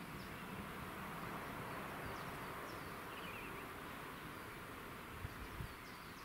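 Quiet rural background hiss with short, high bird chirps now and then and a brief trill about three seconds in.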